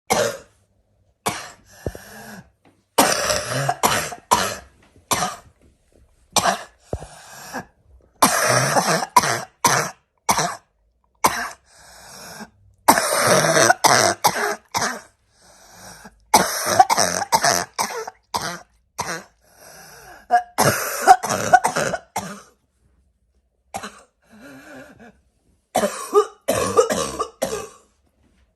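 A person with a harsh, barking cough, coughing in repeated fits of short, sharp coughs grouped in clusters, with short pauses between the fits.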